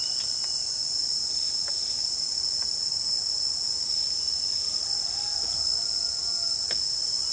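A steady, high-pitched insect chorus droning without a break, with a few faint clicks.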